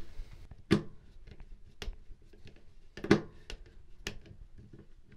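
Scattered light metal clicks and ticks of a screwdriver bit working the screws of a chrome bathtub overflow plate as they are backed out, the sharpest clicks just under a second in and about three seconds in.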